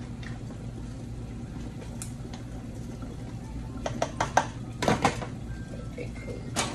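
Stainless steel stockpot handled with a silicone spoon and its metal lid put on: a few sharp knocks about four seconds in, a louder clatter about five seconds in and one more knock near the end, over a steady low hum.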